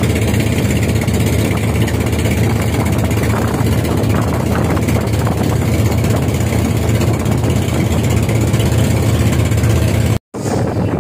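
Outrigger boat (bangka) engine running steadily while under way, a constant low hum. The sound cuts out for a moment near the end.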